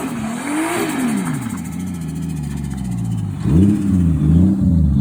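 Car engine revving, its pitch swinging up and down repeatedly, dropping lower about a second and a half in and getting louder again with fresh swings after about three and a half seconds.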